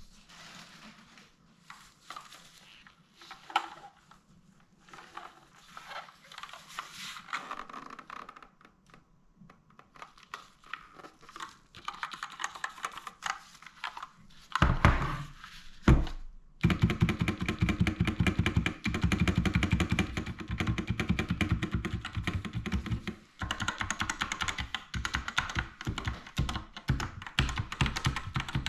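Faint scattered handling sounds, then two heavy thumps about halfway through. After that comes fast, continuous typing on the NOS C450 60% keyboard, a dense run of key clicks with one short break.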